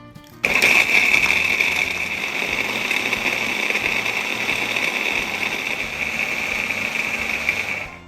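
Food processor motor running at full speed, its blade whirring steadily with a high-pitched whine; it switches on suddenly about half a second in and cuts off near the end.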